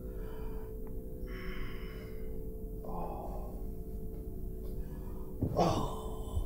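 A woman crying: shaky, gasping breaths, a short low moan about three seconds in, and a louder sobbing cry near the end.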